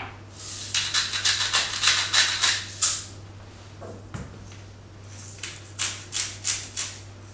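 Salt and pepper being dispensed onto raw lamb cutlets: quick rattling rasps in two runs, one in the first three seconds and another from about five seconds in, with a soft knock in between.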